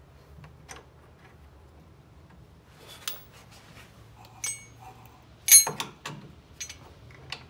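Light metallic clicks and clinks of hand tools against steel suspension parts as a bolt is worked into the lower control arm, with a ringing metal clank about five and a half seconds in, the loudest sound.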